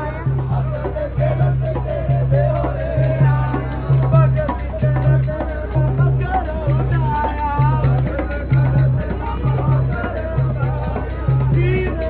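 Punjabi folk drumming on a dhol with a steady deep beat, a little under two strokes a second, and jingling rattles, over the chatter of a crowd.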